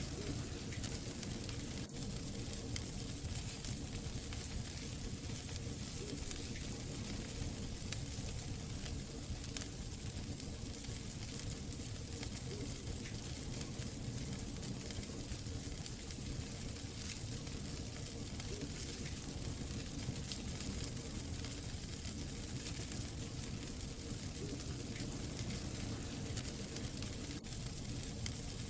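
Wood fire burning in a fireplace, crackling and hissing steadily with many small pops and a couple of louder snaps.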